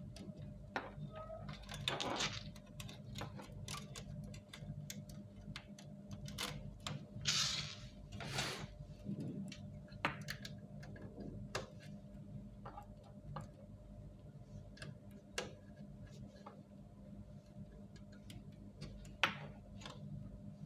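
Irregular clicks and knocks of plastic and metal printer parts being handled during a fuser unit replacement on an HP LaserJet Pro 400 printer, with short scraping rustles about two seconds in and again around seven to eight seconds in, over a steady low hum.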